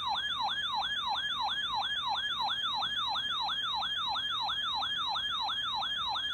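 Electronic siren-like alert tone: a quick falling sweep repeated steadily, about three times a second.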